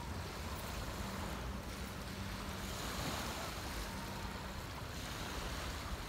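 Sea surf washing on a beach: a steady, even rush of waves, with some wind on the microphone.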